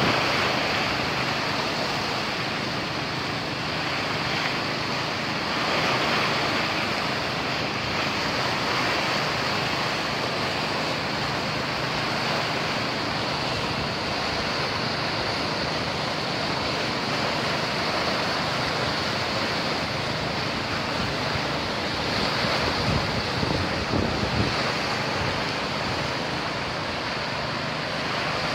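Reservoir water rushing with great force through an open sluice gate into a canal: a steady rush of churning, turbulent water.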